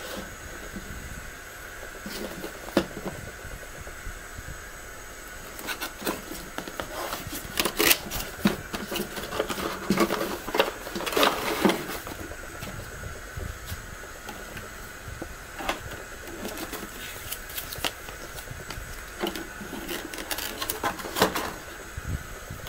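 Packaging being handled: cardboard box and clear plastic blister tray rustling, crinkling and clicking in irregular clusters, busiest from about six to twelve seconds in and again around twenty seconds, over a steady background hiss.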